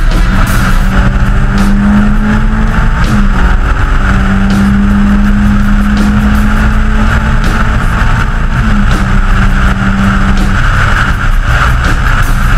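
Caterham Seven 1600K's K-series four-cylinder engine pulling at steady revs while the open car drives at speed, with a constant rush of wind over the open cockpit. The engine note holds steady and drops slightly twice, around three and nine seconds in.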